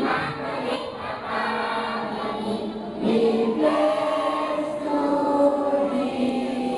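A choir of schoolchildren singing their school hymn together, in long held notes.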